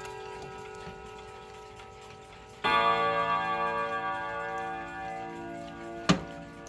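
Mechanical chiming clock ticking while its gong rods ring out: earlier notes fade, then a single loud hammer strike about two and a half seconds in rings on with many tones and slowly dies away. A sharp wooden knock near the end, as the clock cabinet's door is handled.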